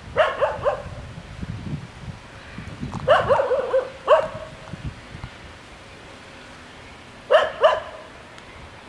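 A dog barking in three short bouts: two or three barks just after the start, four or five barks about three to four seconds in, and two barks near the end.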